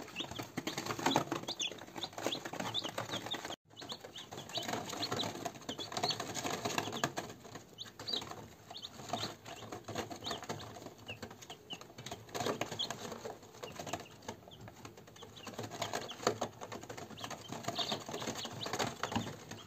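A brooder full of newly hatched chicks peeping, many short high cheeps overlapping, over the scratching and rustling of the chicks moving about.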